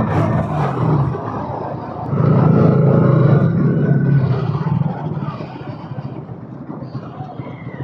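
Bajaj Pulsar NS200's single-cylinder engine through its stock exhaust, running on the road. It gets louder about two seconds in, holds, then eases off and dies down.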